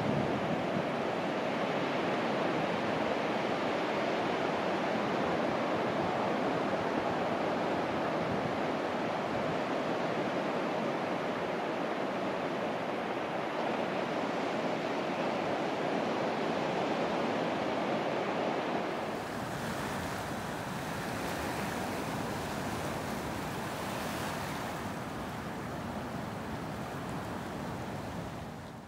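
Steady rush of Pacific Ocean surf breaking on a rocky shore, with some wind on the microphone. About two-thirds of the way through the sound turns hissier and a little quieter.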